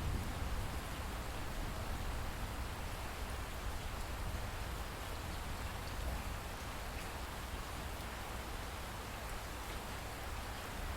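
Steady light rain with scattered drips, over a continuous low rumble.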